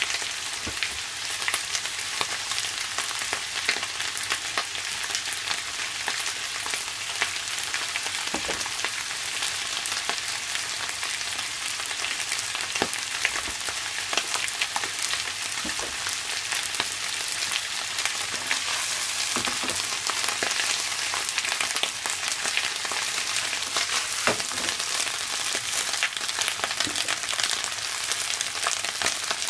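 Napa cabbage stir-frying in a hot pan: a steady crackling sizzle with occasional clicks and taps as it is stirred.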